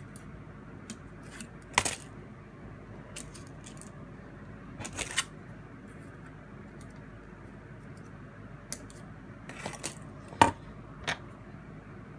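Irregular sharp clicks and taps of small hard parts being handled, as shims are fitted into a plastic toy figure's ratchet joints. There are about five separate clicks, the loudest near the end.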